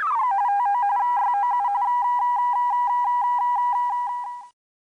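Electronic beeping tone effect: a quick falling sweep, then a rapid warble between two pitches, then a steady beep pulsing several times a second before it cuts off suddenly.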